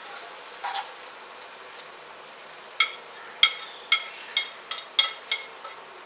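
Onion and ginger-garlic paste sizzling in oil in a nonstick kadai while a steel spoon stirs. About three seconds in, the spoon clinks sharply about nine times in quick succession as ground dry masala is knocked off it into the pan.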